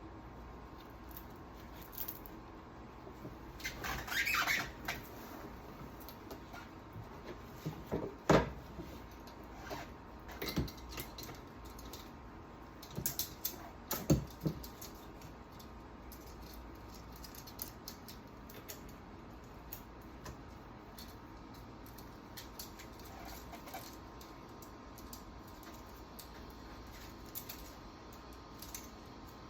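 Chainsaw parts being handled and dried off after a rubbing-alcohol soak: scattered knocks and clicks, the loudest about eight and fourteen seconds in, with a short rubbing rustle about four seconds in.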